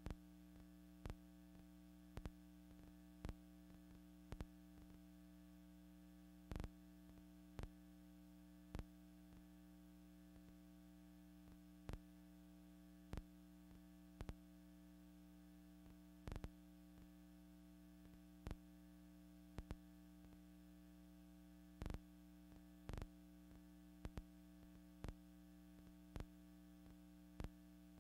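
Near silence: a faint steady electrical hum with soft clicks about once a second at uneven spacing, the background noise of an old film transfer with no recorded sound.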